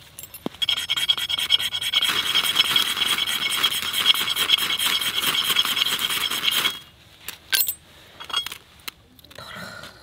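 A ferrocerium fire-starter rod scraped hard and fast with a striker, a quick run of rasping strokes that throws sparks onto paper tinder to light the kindling. It starts about half a second in and stops abruptly about seven seconds in, followed by a few single scrapes.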